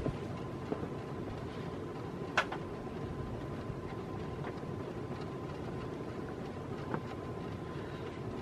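Vintage 1980s TAT ceiling fan running on high: a steady whir of motor and moving air with a faint steady whine. A few sharp ticks come through, the loudest about two and a half seconds in. This is the creaking, rattly sound the owner puts down to the plastic inlays set into the blades, perhaps together with the testing rig.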